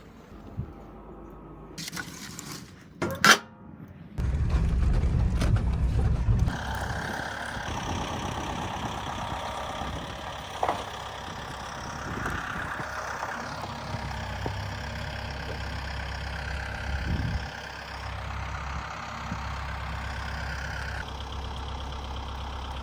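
A couple of sharp knocks, then a vehicle engine starts, runs loud for about two seconds and settles into a steady run.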